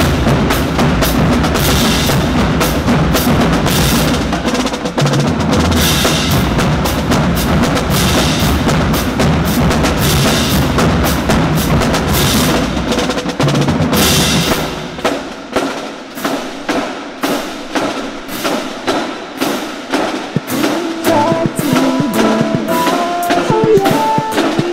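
Marching band drumline playing a cadence: snare drums, bass drums and crash cymbals, with cymbal crashes every couple of seconds. About fifteen seconds in the bass drums drop out and rapid, lighter snare tapping carries on, with a few held pitched notes coming in near the end.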